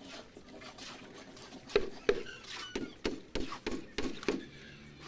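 A run of sharp, irregularly spaced knocks on wooden column formwork, about eight strikes in under three seconds.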